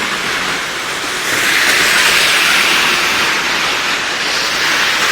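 Blizzard wind rushing over the phone's microphone: a loud, steady hiss that dips briefly and swells back up about a second in.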